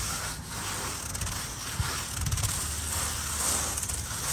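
Scratchy rasping of styrofoam insulation board being shaved flat by hand with a long tool, with a distinct stroke right at the start and then a more continuous scraping.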